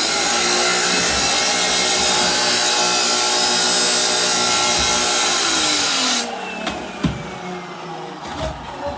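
Abrasive cut-off saw (chop saw) cutting steel: a loud, steady grinding whine that stops suddenly about six seconds in, its motor whine falling as the blade winds down. A few sharp knocks from a shovel working wet concrete in a metal wheelbarrow follow.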